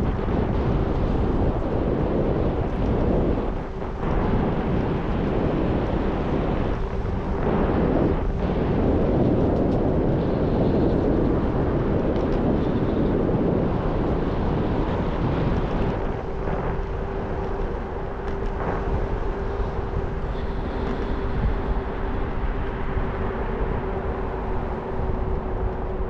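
Wind rushing over the microphone of a moving scooter, with a steady low hum that comes through more clearly past the halfway point.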